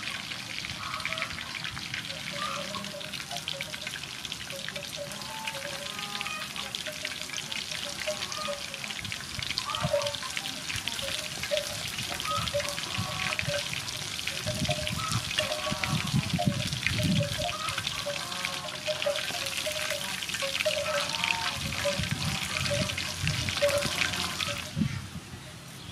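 Breaded chicken wings deep-frying in hot oil: a steady dense crackling sizzle that stops near the end. Scattered short pitched calls sound over it.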